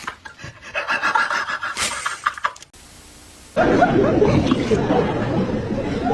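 A person snoring loudly with a rough, noisy snore that starts about halfway in, after a brief stretch of plain hiss.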